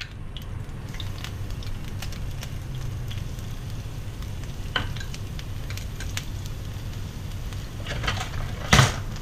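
Minced garlic sizzling in hot cooking oil in a frying pan, with scattered crackles and pops over a steady low rumble. A brief, much louder clatter comes near the end.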